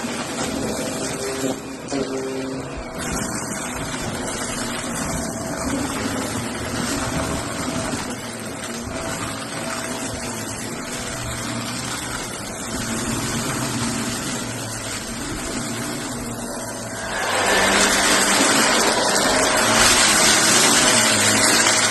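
Shark vacuum cleaner running steadily while picking up cardboard debris, turning louder and brighter about seventeen seconds in.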